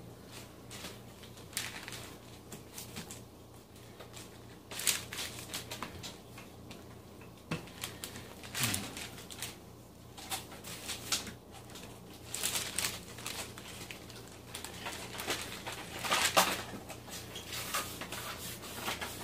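Wooden rolling pin rolling out pie-crust dough on a floured sheet of wax paper: rustling and scraping of the paper, with scattered light knocks from the pin.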